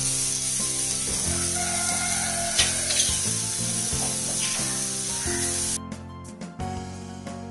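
Marinated chicken pieces sizzling as they are laid into a hot pan, with two sharp knocks about two and a half and three seconds in. The sizzle cuts off suddenly near the end, leaving background music.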